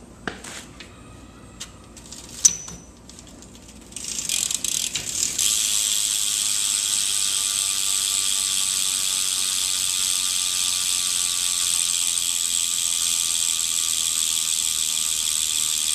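Demolition Ashley BMX rear hub freewheeling as the rear wheel spins, its pawls ratcheting in a loud, continuous fast buzz. A few handling clicks and knocks come before it, and the buzz starts about four seconds in. The hub still has its grease in.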